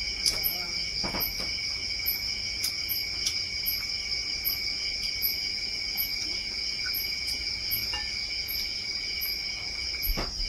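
Night insects trilling steadily in two continuous high tones, with a fainter, higher chirp repeating at an even pace. A single soft knock near the end.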